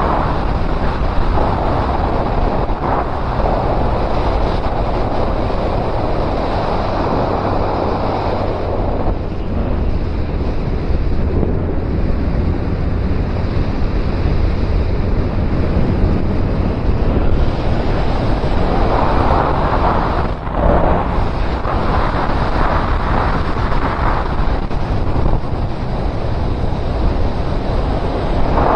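Heavy wind rush on the microphone of a riding motorcycle, with the low steady drone of the Suzuki Bandit 1250's inline-four engine beneath it. The wind eases somewhat for several seconds about a third of the way in, then builds again.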